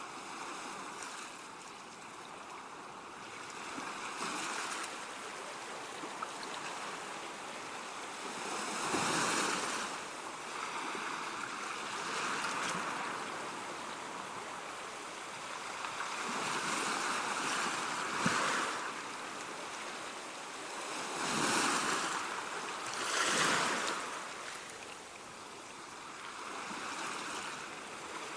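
Ocean surf: waves breaking and washing in, the rush swelling and fading every few seconds.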